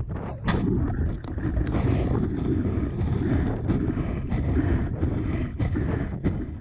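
Strong wind buffeting the microphone in a dense, uneven low rumble, with a few brief sharp splashes or knocks scattered through it.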